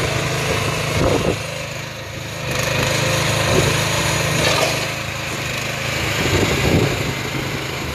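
Small engine of an AGROTK QH12 mini excavator running steadily while the machine is driven on its tracks and its arm is worked, with short rises and falls in pitch and a brief dip in loudness about two seconds in.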